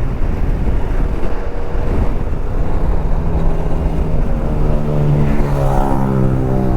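Single-cylinder engine of a Bajaj Pulsar RS200 motorcycle running under way, mixed with wind rush on the helmet-mounted mic. A steady engine note comes through more clearly about halfway in.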